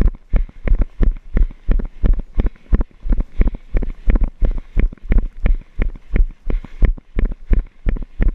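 A jogger's footfalls thudding through a body-worn camera at a steady running pace of about three steps a second.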